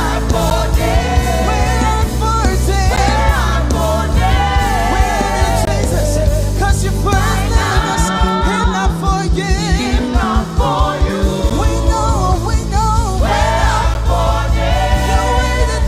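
Live gospel music: voices singing a melody over a band with steady bass and a beat, the bass dropping to a rapid pulsing rhythm for a few seconds midway.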